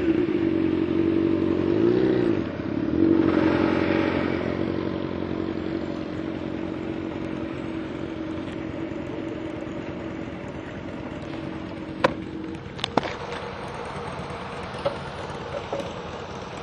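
Kawasaki KLR650's single-cylinder engine, its note rising and falling briefly as the motorcycle slows to park, then idling steadily until it stops about twelve and a half seconds in. A couple of sharp clicks come around the moment it stops.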